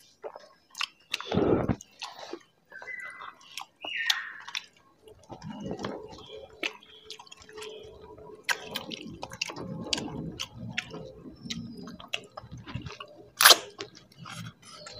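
Close eating sounds of people chewing mutton curry and fried rice eaten by hand from steel plates, with many small clicks. A low thump about one and a half seconds in and a sharp click near the end are the loudest sounds.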